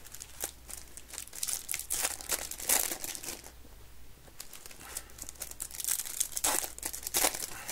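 Foil Topps Chrome baseball card pack wrappers crinkling and tearing as packs are opened by hand, in irregular bursts with a quieter stretch a little past the middle.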